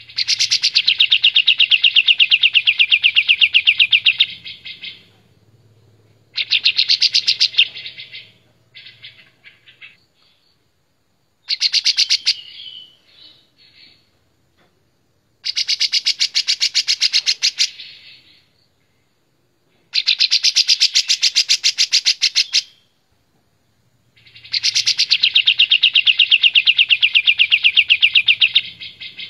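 Caged kapas tembak bulbul singing loud, rapid trilling phrases, six of them, each one to four seconds long with short pauses between.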